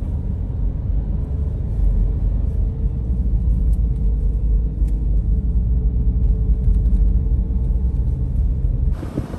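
Steady low rumble of a car driving, heard from inside the cabin, with a faint constant hum over it; it cuts off abruptly near the end.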